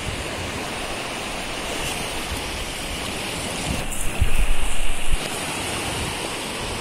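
Surf breaking and washing up a sandy beach, a steady rush of waves. About four seconds in, a low rumble on the microphone lasts about a second and is the loudest part.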